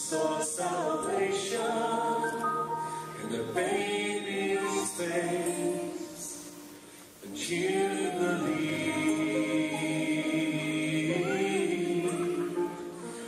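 Choir singing a hymn to Mary in long held phrases, with a short break about halfway through before the next phrase begins.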